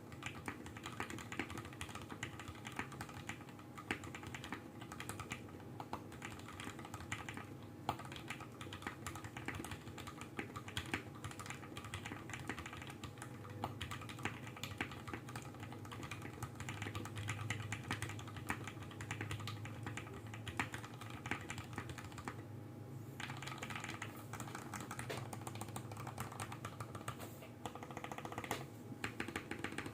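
Fast continuous typing on a custom 60% mechanical keyboard: DZ60RGB PCB with a brass plate in an Iqunix Lambo case with plate and case foam, lubed and filmed Durock Creamy Green linear switches and PBT Cherry-profile keycaps. Dense key clacks run with a brief pause about three-quarters of the way through, over a faint low hum.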